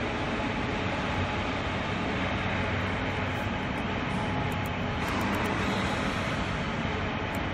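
Common rail injector test bench running: its electric drive motor turning a CP1 high-pressure pump, a steady mechanical hum and rumble.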